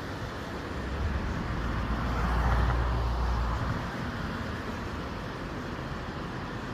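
Steady road-traffic noise, with one vehicle passing: a deep rumble that swells about a second in, is loudest around two and a half seconds, and fades away by four seconds.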